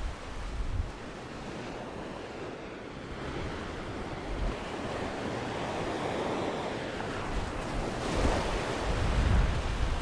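Sea surf washing onto a sandy beach, a steady rush of breaking waves that swells toward the end, with wind buffeting the microphone.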